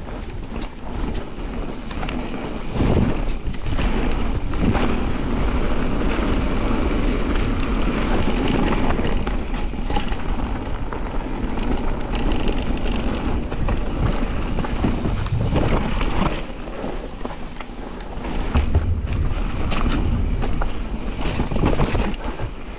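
Mountain bike riding fast down a dirt and gravel forest trail: tyre noise and the bike rattling over bumps, with wind on the microphone.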